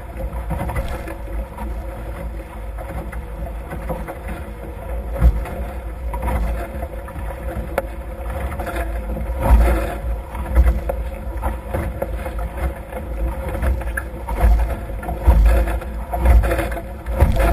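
Water rushing past the twin hulls of a Nacra F18 racing catamaran sailing fast, with wind rumbling on the microphone. It comes in louder, uneven gusts through the second half.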